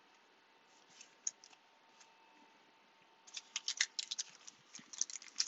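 Trading cards and a foil pack wrapper being handled: a quick run of crinkly rustles and sharp clicks begins about three seconds in, after a nearly quiet start.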